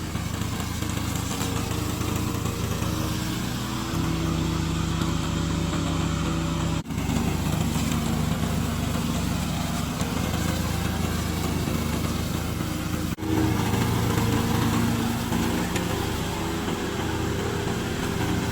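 Engine of a remote-controlled lawn mower running steadily, its pitch shifting now and then as it works. There are two brief dropouts, about a third and two thirds of the way through.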